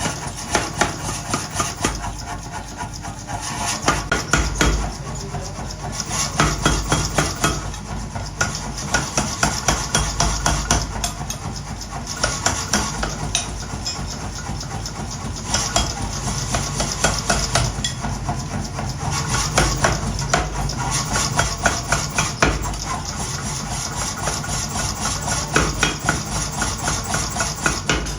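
Metal hammering in runs of rapid blows, several seconds apart, over a steady machine hum.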